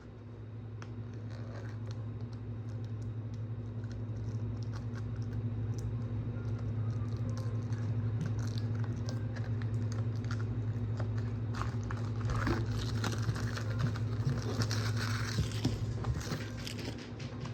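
Plastic shrink-wrap being picked at and peeled off a DVD case: irregular small clicks and crinkling, busiest a little past the middle. A steady low hum runs underneath.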